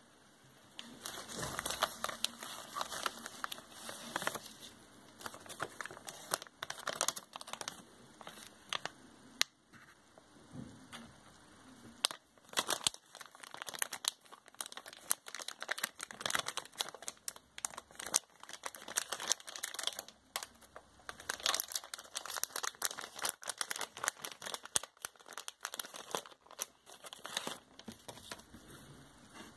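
Plastic packaging crinkling and rustling in irregular bursts with sharp crackles: a plastic postal mailer being torn open and a cable adapter pulled out of its plastic bag.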